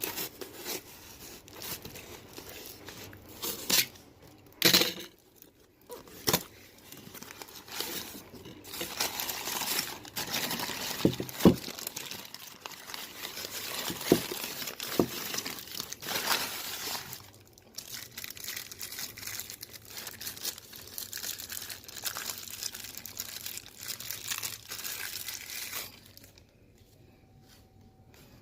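Packaging being torn open and crumpled by hand: a few sharp rips in the first several seconds, then a long stretch of continuous crinkling and rustling that stops a couple of seconds before the end.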